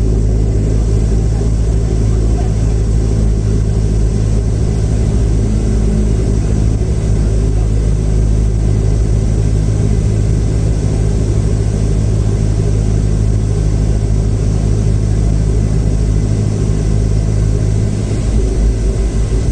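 Turboprop airliner's engine and propeller running with a loud, steady drone, heard from inside the cabin. The low drone starts to waver near the end.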